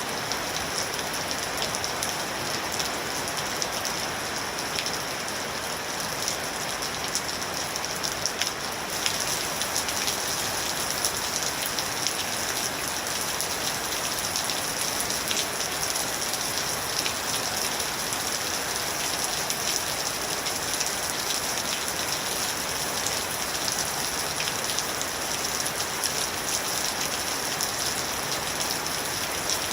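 Steady rain falling, a dense hiss with many small drop ticks, picking up slightly about nine seconds in.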